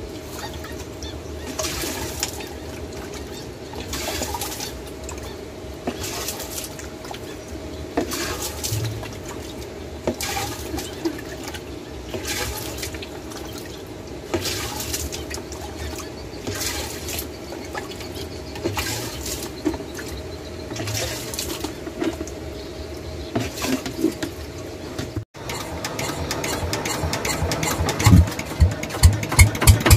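Water poured scoop by scoop from a dipper into a bucket on an Alkon NS 150 centrifugal pump's casing, a splash about every two seconds, filling the pump to prime it. Near the end the pump's engine is started and begins to run.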